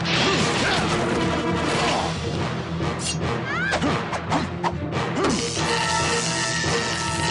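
Background music over a fight: a run of hits and crashes, thickest in the middle.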